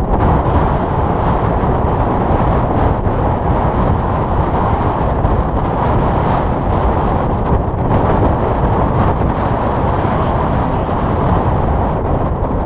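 Strong wind rushing over the microphone of a paraglider in flight, a loud steady rumble with no tones in it.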